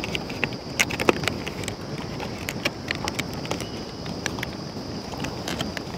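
Aluminium foil food trays and their lids being handled and set down on a mat, giving irregular light clicks and taps, over a steady high-pitched whine in the background.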